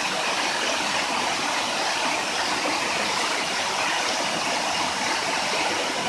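Steady, even rush of water from a waterfall and the stream running below it.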